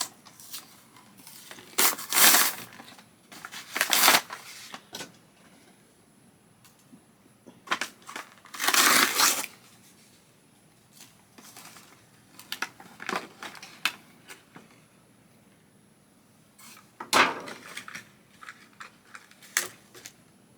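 Toy packaging being handled and opened: irregular bursts of crinkling and crushing plastic and card, the longest about nine seconds in.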